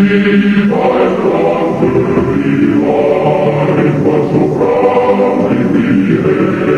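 A choir singing slow, sustained chords, each held for a second or two before it moves to the next.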